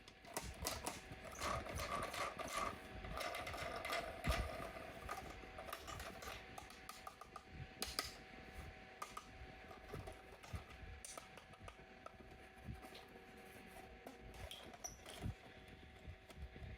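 Irregular light clicks and rustling of plastic being handled, denser and crinkly for the first few seconds, then sparser taps: a toy and its packaging being unboxed.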